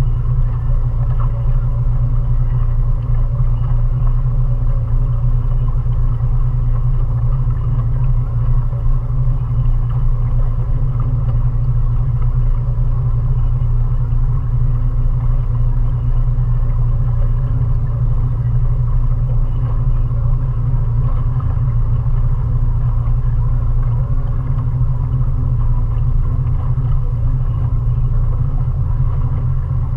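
Mariner 20 hp outboard motor running at a steady cruising speed, a constant low drone that never changes in pitch or level.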